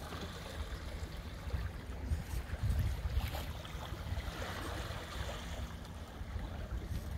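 Water washing and slapping along the hull of a small sailboat under sail in a light chop, with gusty wind rumbling on the microphone. No motor is running.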